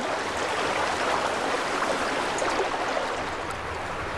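Fast-flowing river water rushing with a steady, even noise, the sound of a river swollen by spring floodwater.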